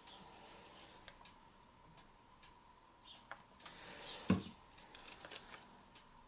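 Small clicks and taps of paint cups and tools being handled on a work table, with one louder knock about four seconds in, over a faint steady thin tone.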